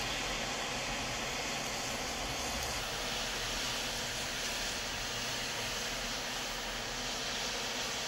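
Steady rushing of a river in flood after a typhoon: a continuous, even hiss of fast, swollen muddy water.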